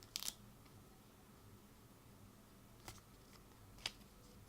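Small sharp clicks in near silence: the Apple AirPods charging case's magnetic lid snapping, once clearly just after the start and twice more faintly near the end.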